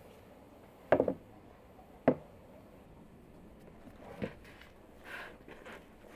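Sharp wooden knocks as a rolling pin and a bowl are set down on a wooden pastry board and table: two loud ones about one and two seconds in, and a softer one a little after four seconds. Then a brief soft rustle as flour is scattered over the board.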